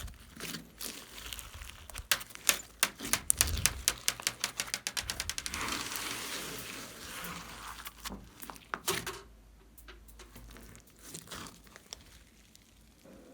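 Glossy slime being squeezed and stretched by hand, giving fast runs of sharp clicking pops from trapped air. It quietens to occasional soft clicks after about nine seconds.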